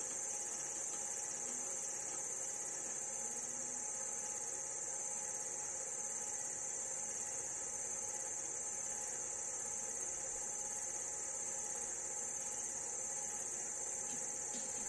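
Steady high-pitched electronic hiss with a faint low hum beneath, unchanging, over a silent stretch of VHS playback.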